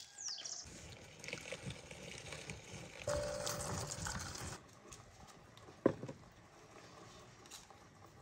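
Meat grinder mincing onions: a rhythmic crunching and knocking, loudest from about three to four and a half seconds in, then a single sharp knock about six seconds in.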